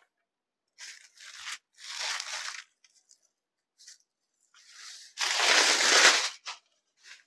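Rustling swishes of a printed saree's cloth being unfolded and shaken out: a few short rustles in the first three seconds, then the loudest and longest swish about five seconds in as the length of cloth is flung open.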